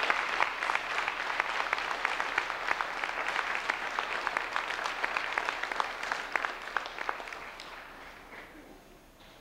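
Audience applauding: a dense patter of many hands clapping that thins out and fades away over the last few seconds.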